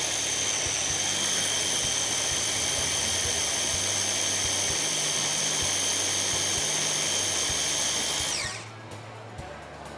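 Small electric food processor running steadily with a high-pitched motor whine as it purées an eggplant, garlic and tahini mixture for baba ghanoush. It is switched off a little past eight seconds in, and the whine winds down with falling pitch.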